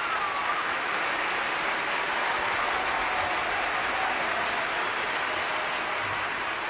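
A large theatre audience applauding steadily at the end of a stage performance.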